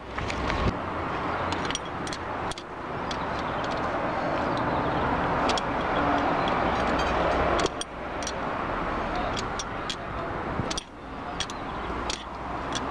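Metal clinks from an open-end wrench and heavy tyre-protection chain links as a bolt on the chain is tightened. The clinks come at scattered moments over a steady noise with a low hum.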